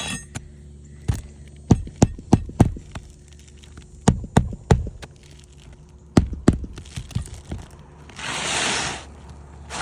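Hammer blows on an asphalt-shingle roof, about ten sharp strikes in short runs of two or three, followed about eight seconds in by a noisy scrape of about a second.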